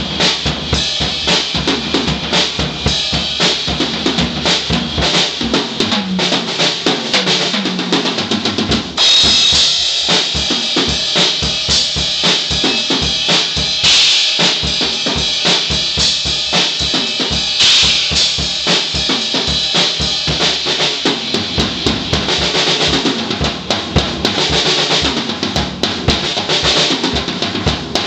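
Tama drum kit played freely and busily: rapid snare and tom strokes over a pulsing bass drum, with loud cymbal crashes several times, the strongest about halfway through.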